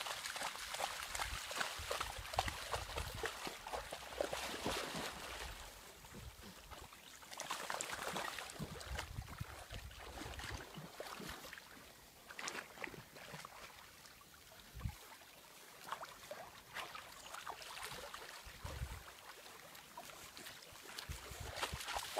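A dog wading and swimming in a shallow river, its paddling making irregular splashing and sloshing of water, with the rustle of tall grass at times.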